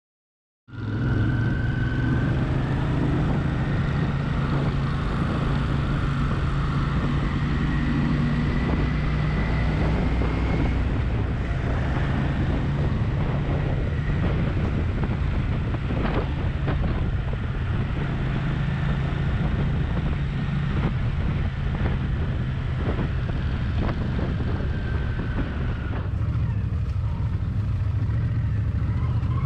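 Motorcycle engine running at a steady cruise, with wind noise on the microphone. The sound starts suddenly just under a second in.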